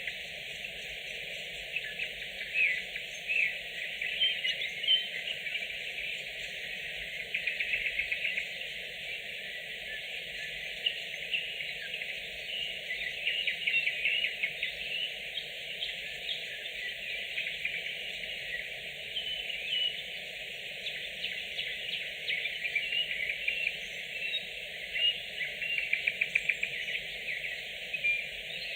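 Nightingales singing: varied whistled phrases and short chirps, with bursts of rapid repeated-note trills, over a steady background chorus.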